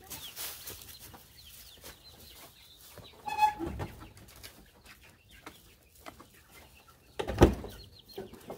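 Quail in a wire cage chirping faintly, with one louder pitched call about three seconds in, followed by a low bump. A sharp thump near the end is the loudest sound.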